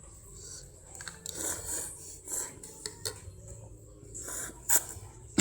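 Eating sounds: a utensil scraping and clinking against a cup of instant noodles, with a few sharp clicks.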